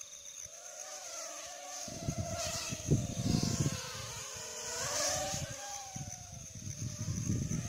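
Yizhan X4 micro quadcopter's motors whining in flight, the pitch wavering up and down as the throttle changes. Wind rumbles on the microphone from about two seconds in and again near the end.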